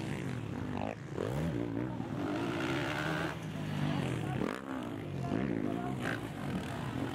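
Motocross dirt bike engines revving hard, the pitch dropping and climbing again several times as riders shift and throttle through the track.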